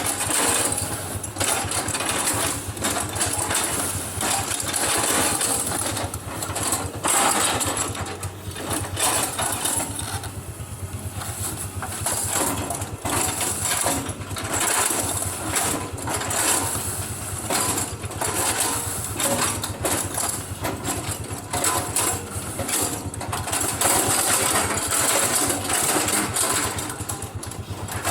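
A motor-driven machine running continuously with a fast, clattering mechanical beat and a steady low hum.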